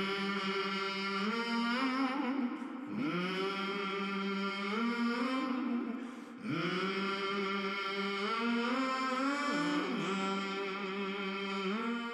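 A singing voice holding long, drawn-out notes in a chant-like melody, in three phrases, each opening with an upward slide in pitch and broken by short breaths.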